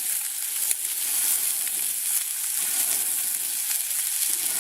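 Food sizzling over a campfire: a steady high hiss with scattered faint ticks.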